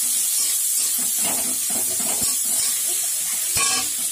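Shredded cabbage, onion and green chilli sizzling in hot oil in a metal kadai, with a steady hiss. A metal spatula scrapes and knocks against the pan a few times, most sharply about three and a half seconds in.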